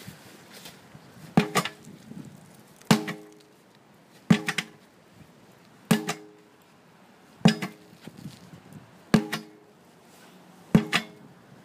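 A 10-pound sledgehammer striking a tire seven times, one heavy blow about every one and a half seconds. Some blows are followed by a quick second knock, and each leaves a brief ring.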